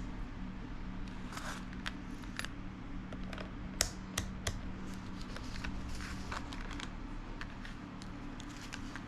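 A series of small clicks and taps from hard objects being handled, with three sharper clicks near the middle, over a steady low hum.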